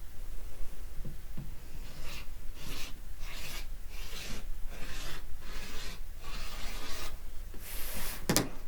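Rotary cutter blade being worked back and forth over fabric on a cutting mat, a run of rasping strokes about two a second starting about two seconds in, with a sharp knock near the end.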